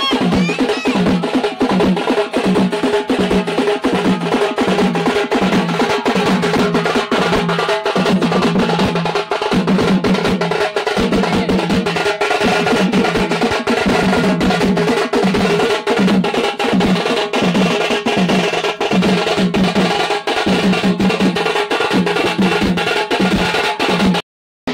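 Ritual puja drumming: drums beaten fast and without a break, with steady held tones sounding underneath. The drumming drops out briefly just before the end.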